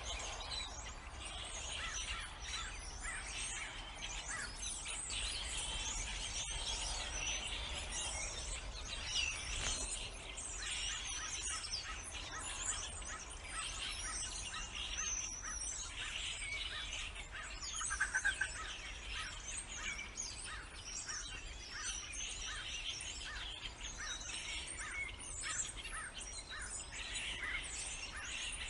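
A dense chorus of songbirds chirping and singing over one another without a break, with a louder short call about two-thirds of the way through.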